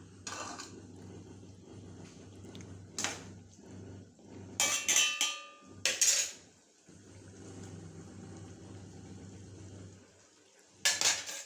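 Metal kitchen utensils knocking and scraping against a cooking pot in a handful of separate strikes. The loudest cluster, about five seconds in, rings briefly. A steady low hum runs underneath.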